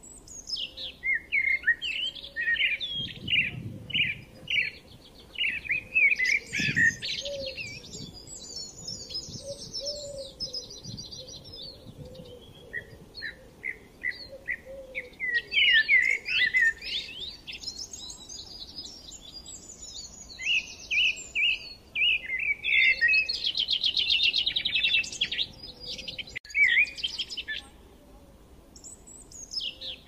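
Several songbirds singing together, short chirping phrases and fast trills overlapping, with a lull near the end.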